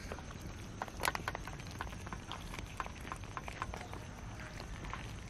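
A crowd of cats eating rice from a shared metal tray: many small, irregular clicks and smacks of chewing and lapping, the sharpest about a second in.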